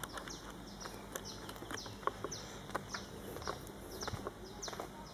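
Birds calling: short, high chirps that fall in pitch, repeated every half second or so, over a faint outdoor background.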